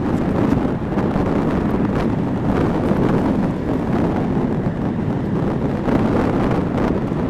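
Wind buffeting the microphone over the steady low rumble of an Airbus A380's four jet engines on final approach.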